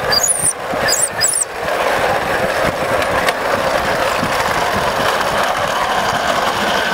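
Maxitrak Alice Quarry Hunslet miniature live-steam locomotive running along the track under a rider's load, a steady mechanical running noise from its exhaust and wheels on the rails. A few brief high squeaks come in the first second and a half.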